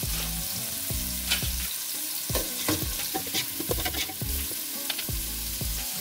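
Sliced onion frying in hot olive oil in a pot, sizzling, with irregular clicks and scrapes of a spoon stirring against the pot as the onion browns.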